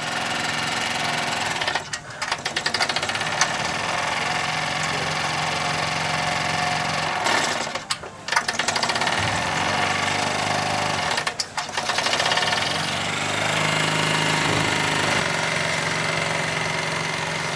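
Wilesco model steam engines running on compressed air for their final test run: a fast, steady mechanical clatter from the piston and valve gear, broken by three short pauses.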